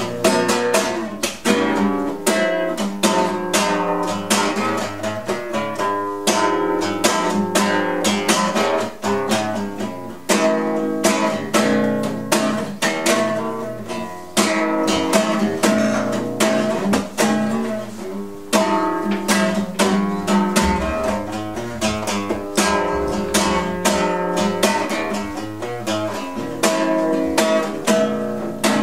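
Nylon-string classical guitar strummed solo in a steady rhythm, chords ringing between the strokes, with no singing.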